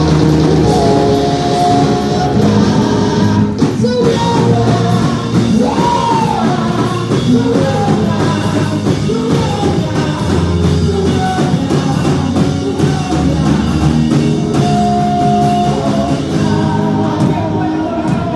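Live church worship music: voices singing over an accompaniment of long held chords and a steady drum beat.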